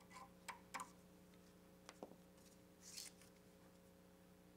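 Near silence over a faint steady hum, with a few faint clicks and a brief scrape about three seconds in: a small pick cleaning dirt out of the compression-ring groove on a CV axle shaft.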